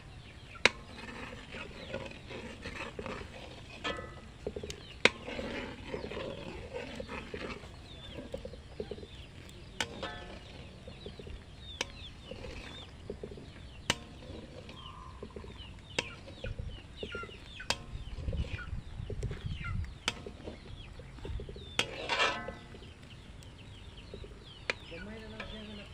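Chickens clucking throughout, with one louder squawk about three-quarters of the way through. Scattered sharp clicks and taps run through it.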